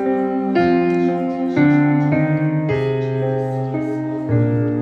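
Background music: a keyboard playing slow, held chords that change about once a second.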